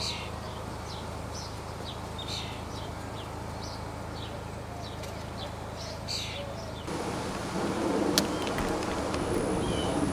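Small birds chirping, several short high calls a second, over the steady low hum of an idling vehicle. About seven seconds in, the sound cuts abruptly to louder outdoor noise with a few sharp clicks.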